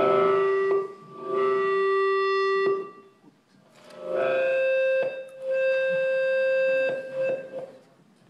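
A series of long held musical tones: two notes at one pitch, then two at a higher pitch, each lasting about a second and a half with short gaps between.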